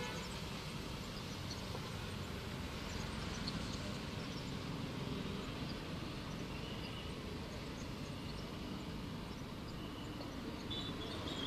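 Steady rushing outdoor noise from storm footage, with faint high chirps here and there and a few brief high tones near the end.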